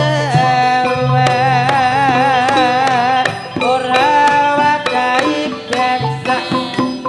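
Javanese campursari music: hand-drum strokes under a high melody line that wavers with a strong, even vibrato.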